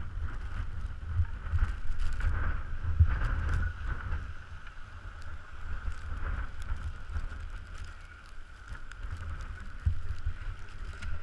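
Wind noise on the microphone, with a steady high whine and scattered clicks.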